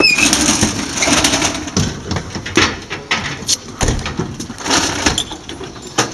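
Irregular knocks and clatter of firefighting gear being pulled from a fire engine's open equipment compartments, loudest and busiest in the first second.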